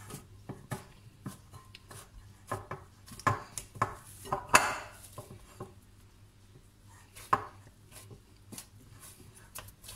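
Stiff flour dough being kneaded by hand in a glass bowl: irregular soft knocks and slaps as the dough is pressed and folded against the bowl, the loudest about four and a half seconds and about seven seconds in.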